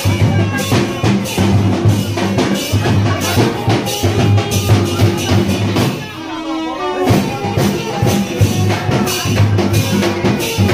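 Music with a steady drum beat; the beat pauses for about a second a little past halfway, then carries on.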